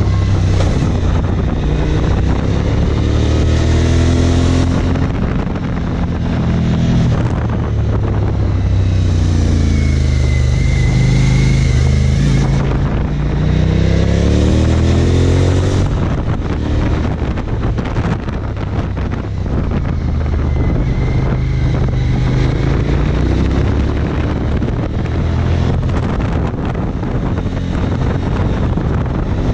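Suzuki DL1000 V-Strom's V-twin engine under way through a run of bends, its revs dropping as the throttle is rolled off and climbing again on the drive out, several times over, with wind noise on the microphone.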